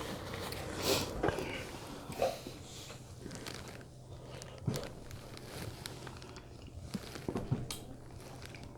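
Close-miked chewing and mouth sounds of a person eating: short wet smacks and clicks every second or two.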